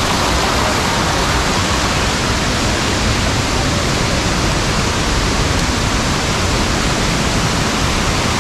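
Taytay Falls: the loud, steady rush of water pouring down the falls, with no breaks or changes.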